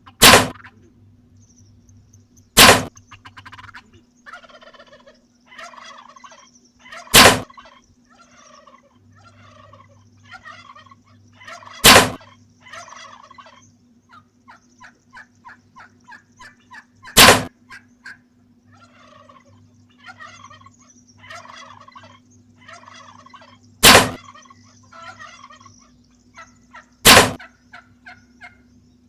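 Wild turkey gobbling loudly seven times, a few seconds apart, with quieter rapid turkey calls between the gobbles.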